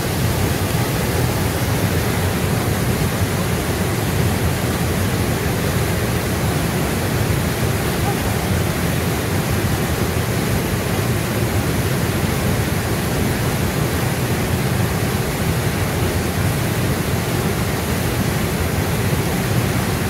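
Waterfall pouring into a rock pool: a steady, even rush of falling water.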